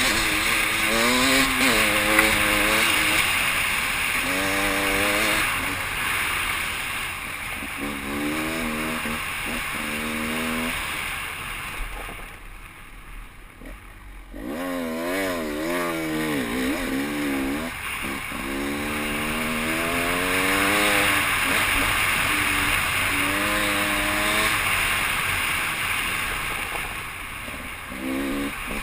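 Enduro dirt bike engine being ridden hard, revving up and down over and over as the rider works the throttle and gears. It drops off for about two seconds about twelve seconds in, then picks up and revs again.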